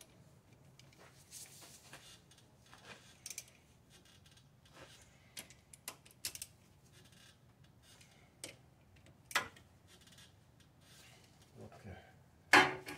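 Hand tools working on bolts: scattered, irregular metallic clicks and light clanks as bolts are torqued, with a sharper click about nine seconds in and another near the end.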